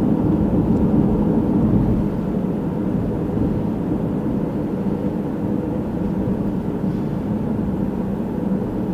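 Steady road and engine noise heard from inside a moving car's cabin, an even low hum with a few steady tones in it.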